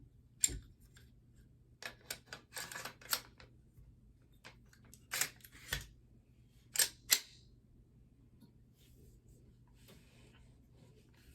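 Metal clicks and short sliding scrapes of an AR-15 bolt carrier group and charging handle being worked into the upper receiver, a handful of separate clicks over the first seven seconds, then quiet handling.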